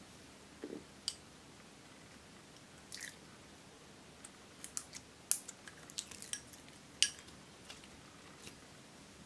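Clear slime squished and pressed by hand, giving scattered sticky clicks and pops that bunch up in the middle, with a soft knock near the start.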